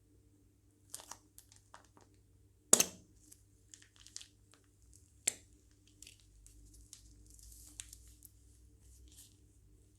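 Plastic piping bags crinkling as they are handled, with scattered sharp clicks and taps. The loudest is a sharp knock about three seconds in, with another a couple of seconds later.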